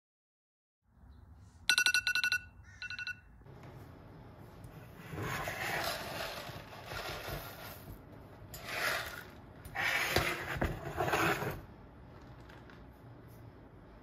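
A short electronic alarm beeping rapidly in two brief bursts, followed by several soft swells of rustling noise.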